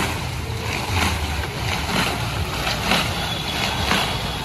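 Large ice-cream roller drum turning on its axle: a steady rumble with a soft swish about twice a second as the drum goes round under a gloved hand.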